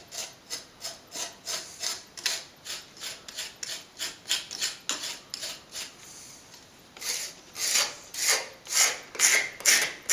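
Repeated scraping strokes of a plastering tool on set plaster, cutting back the base coat to leave room for the finish coat. Quick, even strokes about three a second, a short pause about halfway, then slower, louder strokes.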